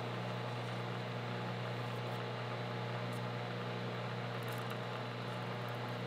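Metal lathe running steadily with a low hum while turning a small steel pin, with a few faint ticks about four to five seconds in.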